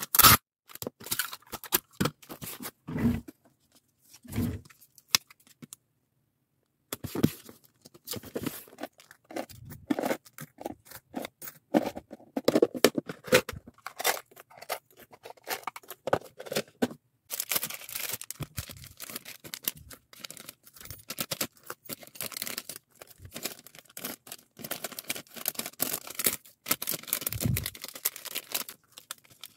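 Parcel-packing sounds: packing tape ripped off a handheld tape dispenser and pressed onto a cardboard box, then clicks and rattles of perler-bead keychains and a snap-lid plastic case being handled, and clear plastic bags crinkling as the keychains are bagged.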